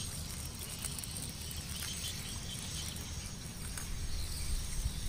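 Swamp-side outdoor ambience: faint, steady high insect trilling over a low rumble that grows louder near the end.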